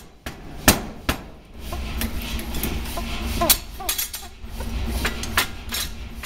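A 5 cwt Massey power hammer strikes a hot steel bar with a few heavy blows in the first second or so. The blows then stop and the hammer's running drive gives a steady low hum, with scattered clinks and knocks of steel as the bar is turned on the dies.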